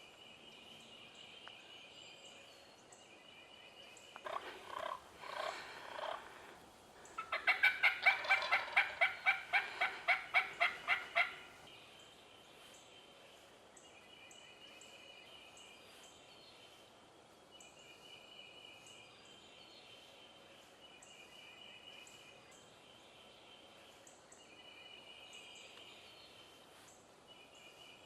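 Wild turkeys calling at close range. Three loud gobbles about four seconds in are followed by a quick run of about fourteen even, rattling notes over some four seconds. Faint high bird chirps continue behind them.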